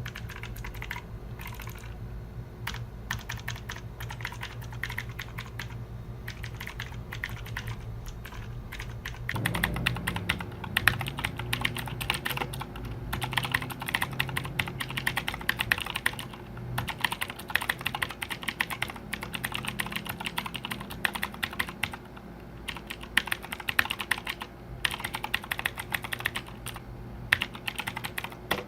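Typing on a Fantech MK883 mechanical keyboard: a quick, continuous run of key clicks and clacks, louder and busier from about nine seconds in.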